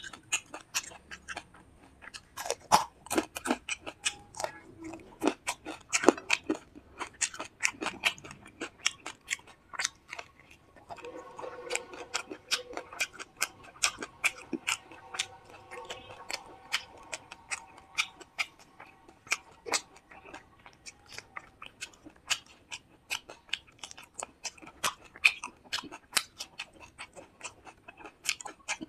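Close-miked ASMR eating sounds: wet chewing and lip smacks, a dense run of sharp clicks, as a mouthful of rice with fish curry and fried fish is chewed.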